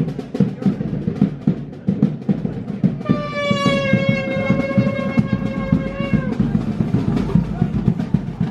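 Drums beating a steady, busy rhythm. About three seconds in, a single long held high note joins for about three seconds, dipping slightly as it ends.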